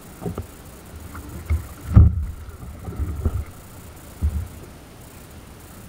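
Swell slapping against a fishing kayak's hull in rough open sea: a run of irregular low thuds over a steady wash of water, the loudest about two seconds in.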